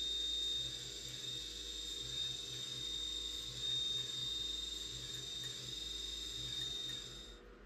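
CNC milling machine spindle running with a steady high whine while a drill cuts dry through a ZK60A magnesium billet, over a low machine hum that pulses on and off. It cuts off suddenly near the end.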